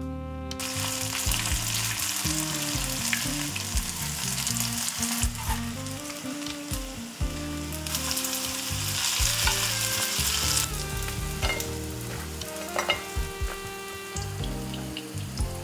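Coated pieces of food frying in hot oil in a pan, a steady sizzle that starts about half a second in and eases off about two-thirds of the way through. A few light clicks come from a utensil turning the pieces.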